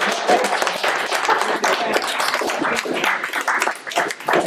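A small audience clapping in a classroom, a dense patter of many hands that thins out near the end.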